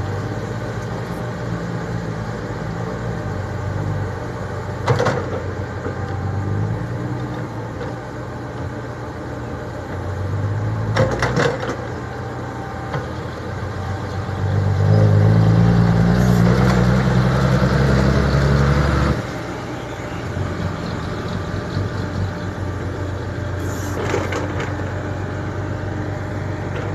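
Komatsu PC70 hydraulic excavator's diesel engine running steadily, working harder and louder for about four seconds past the middle, with three short sharp knocks.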